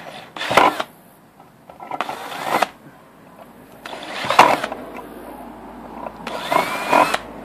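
Handheld electric drill with a 5/32-inch bit boring through the thin metal lid of a mint tin, run in four short bursts with the motor whine rising as it spins up. The drill is enlarging pilot holes for potentiometer posts.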